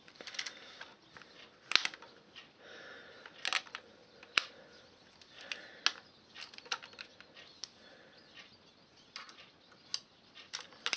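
Irregular small metallic and plastic clicks and rattles from an air gun's pellet magazine and action being handled and loaded, with light rustling between the clicks.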